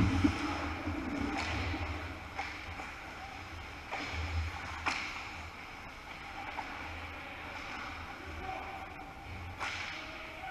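Ice hockey game sounds in a rink: a steady hiss of skating, with five sharp clacks of sticks and puck spread through it.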